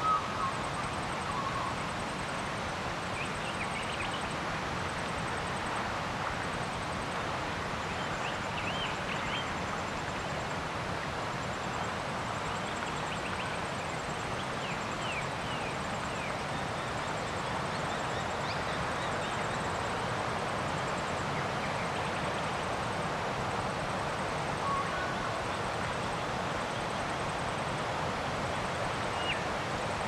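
Outdoor lakeside ambience: a steady background rush with scattered short bird chirps and a faint, evenly pulsing high trill.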